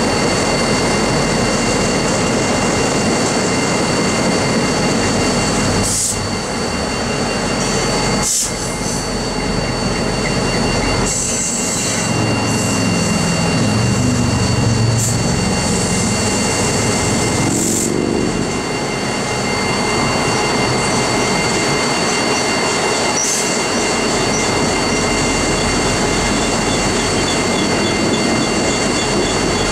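Freight train's tank cars rolling past: a loud, continuous rumble of steel wheels on rail with a steady high-pitched wheel squeal and a few sharp clanks.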